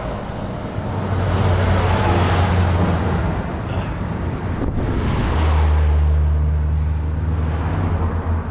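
Road traffic passing close by, two vehicles one after the other: a rush of tyre and engine noise about a second in, then a second pass with a deep engine drone from about five seconds in. One of them is a semi-truck.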